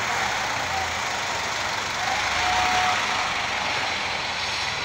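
Heavy diesel truck engines running in city street traffic, a steady noise that swells slightly about two to three seconds in, as a fire engine pulls away down the street.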